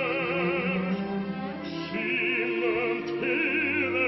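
A bass singing a slow, sustained line in German with wide vibrato over an opera orchestra.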